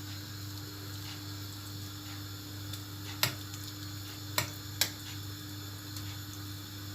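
Three sharp clicks of kitchenware being handled, two of them close together about a second after the first, over a steady low hum.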